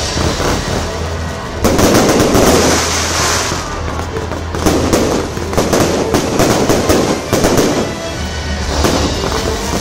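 Aerial fireworks going off in quick succession: a dense, continuous crackle and pop of bursting shells and stars, growing louder about two seconds in.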